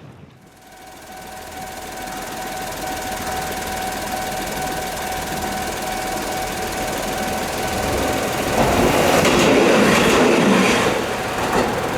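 Japanese level-crossing warning bell ringing steadily while a train approaches, the rumble growing louder. About eight and a half seconds in, the train passes over the crossing in a loud rush of wheel and car noise.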